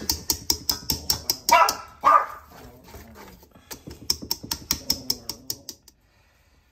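Wire whisk beating thick biscuit dough in a stainless steel mixing bowl, clinking against the bowl about five times a second and stopping near the end. A dog barks twice at about one and a half and two seconds in.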